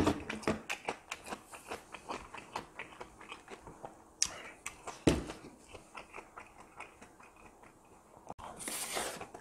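Close-miked chewing and mouth noises from one person eating, with a couple of sharp knocks about halfway as a spoon meets the stainless steel tray, and a short hissing noise near the end.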